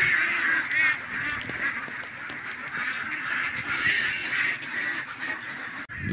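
A large flock of domestic waterfowl calling, many overlapping honks and quacks. Just before the end it cuts sharply to a low rumble of wind on the microphone.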